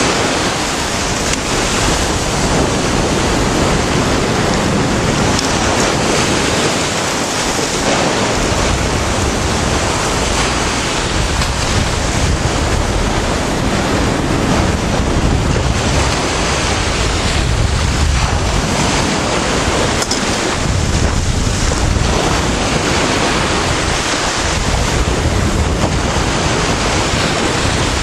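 Sea surf breaking and washing around shore rocks in a steady rush, with wind buffeting the microphone, heavier from about eight seconds in.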